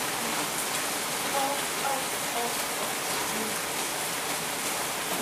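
Steady rain falling, an even hiss of water on hard surfaces, with a faint voice now and then.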